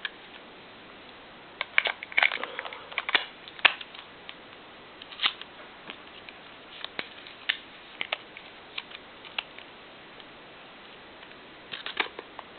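Scattered plastic clicks and small knocks from a Yashica T3D compact 35mm camera being handled while film is loaded. The clicks bunch up about two to four seconds in, with more spread through the rest.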